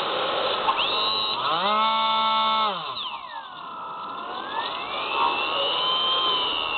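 Electric motor and propeller of a SpyHawk FPV plane, heard through its onboard camera. A rush of wind and motor noise comes first. About a second and a half in, a steady motor hum rises, holds briefly and drops away, and then a whining tone falls and slowly rises again as the throttle changes.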